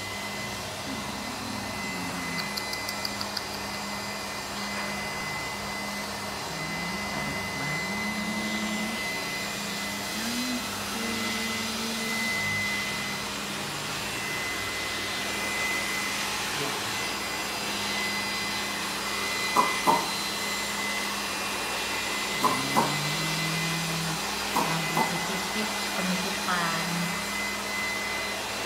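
Steady motor or fan hum with a constant high whine over a low drone. There is a quick run of light ticks near the start, and a few sharp short knocks in the second half.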